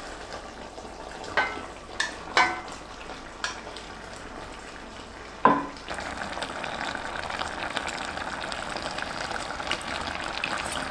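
Beef cubes frying in an enamelled cast-iron pot, with a few sharp clinks of a utensil against the pot, the loudest about five and a half seconds in. From about six seconds the sizzling gets louder and steady.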